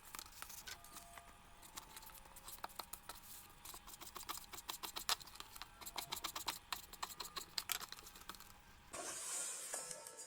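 Rapid, irregular light clicks and clinks, with a short hiss about nine seconds in.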